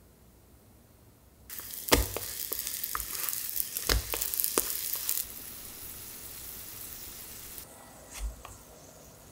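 Korean sweet pancakes (hotteok) sizzling in oil in a frying pan, with several sharp clicks of a metal utensil against the pan. The sizzle drops about halfway through and stops, and a single dull knock comes near the end.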